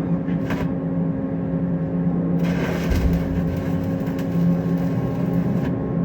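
Steady electrical hum of welding equipment, with about three seconds of hissing, crackling stick-welding arc starting about two and a half seconds in.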